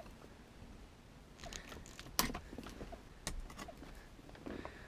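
Handling noises: rustling and a few sharp clicks, the loudest about two seconds in, as hands and pliers work at the wiring under a car's passenger seat.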